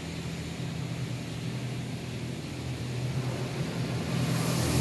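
Automatic tunnel car wash heard from inside the car: a steady low rumble of the wash equipment with water and foam running over the glass. It grows louder near the end as a high hiss of spray comes in.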